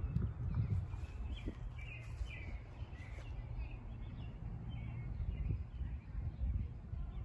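Birds chirping in the trees, a run of short calls between about one and three seconds in and fainter ones later, over a steady low rumble of wind on the microphone.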